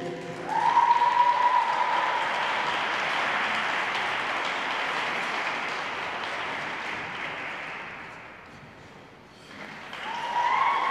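Spectators applauding in an ice rink as a figure skating program ends, with a long high-pitched whoop about half a second in. The clapping fades about eight seconds in, then swells again with another whoop near the end.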